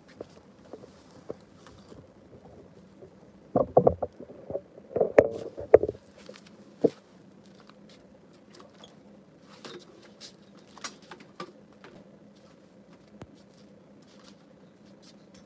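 Handling noise of a camera being set down on patio paving: a cluster of loud knocks and bumps about four to six seconds in, with one more a second later. After that come a few faint clicks over a quiet outdoor background.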